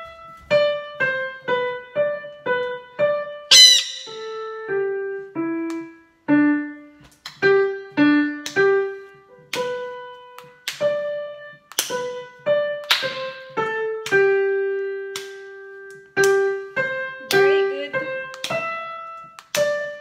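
Solo piano music: a simple melody of separate notes, about two a second, with one note held longer about two-thirds of the way through. A short, high squeak cuts in over it about three and a half seconds in.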